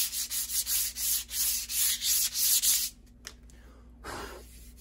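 A wooden axe handle being hand-sanded with sandpaper to knock off its edges: quick back-and-forth rasping strokes, about two or three a second, that stop about three seconds in, followed by one faint swish near the end.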